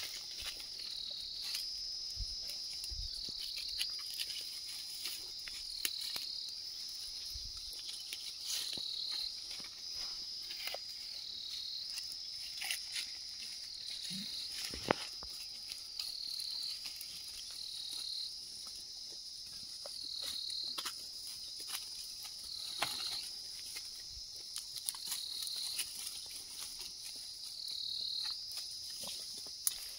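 A steady high-pitched insect chorus whose pitch dips briefly every couple of seconds, with scattered snaps and rustles of twigs and leaves from goats browsing in the bushes.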